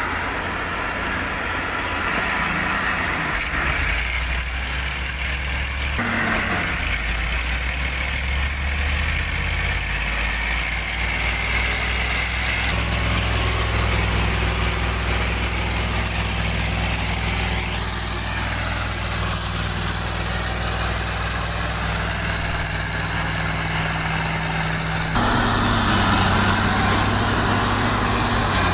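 Heavy wood-processing machinery with its engines running steadily, as a low hum. The sound changes abruptly three times as one machine clip cuts to the next.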